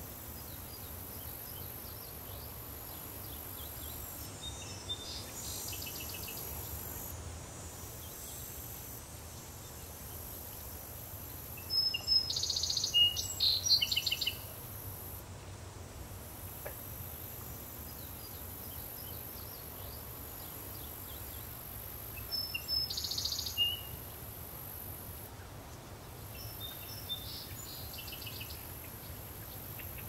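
Daytime countryside ambience: a steady high drone of crickets and cicadas over a low distant rumble, with bird song breaking in a few times, loudest about twelve seconds in and again around twenty-three seconds.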